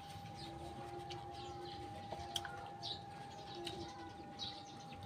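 Faint background birds: short high chirps a few times and low, drawn-out cooing calls, over a steady thin high tone.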